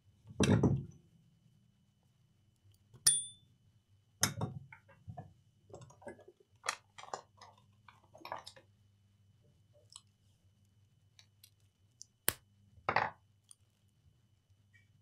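Scattered clicks, clinks and short knocks of tools being handled on a workbench, over a faint steady low hum. One click about three seconds in comes with a brief high beep-like tone.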